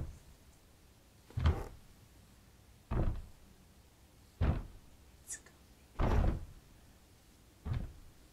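A locked wooden door being pounded from the other side: about six heavy thuds, roughly one every second and a half, as something tries to break through.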